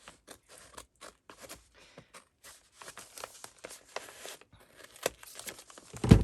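Packaging being handled and opened by hand: irregular rustling and crinkling, with a loud thump near the end.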